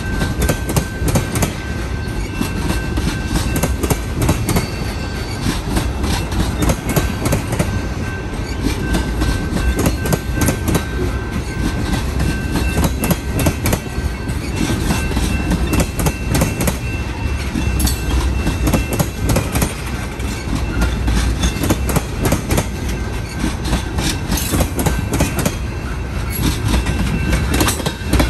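Freight train's tank cars rolling past, steel wheels clacking over rail joints over a steady low rumble.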